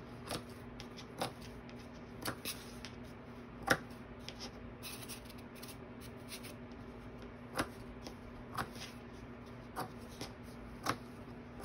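Scissors snipping through fabric in short, irregularly spaced cuts, over a faint steady hum.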